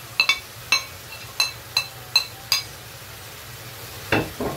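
Metal spoon stirring spices into chicken frying in a karahi: about eight ringing clinks of the spoon on the pan in the first two and a half seconds over a steady sizzle, then a louder knock a little after four seconds.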